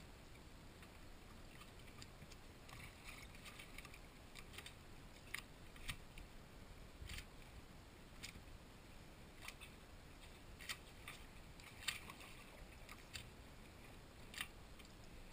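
Near silence with a faint low rumble, broken by light, sharp ticks that come irregularly, roughly one a second.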